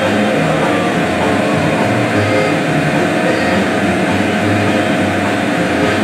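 Steady machinery noise: a loud, even rushing hum with a constant mid-pitched whine running through it.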